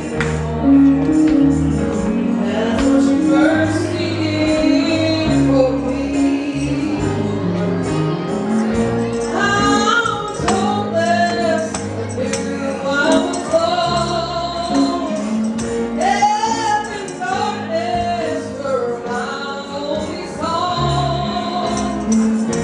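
A song sung over band accompaniment, the voice holding and sliding between notes above steady bass and chords.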